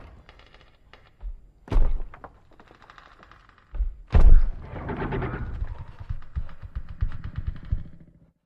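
Film destruction sound effect: heavy crashing impacts, the biggest about four seconds in, followed by a long clatter of falling debris that dies away just before the end.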